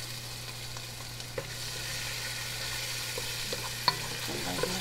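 Chopped garlic and onion sizzling in hot oil in a pan as they are stirred with a wooden spatula, with a few light knocks of the spatula against the pan.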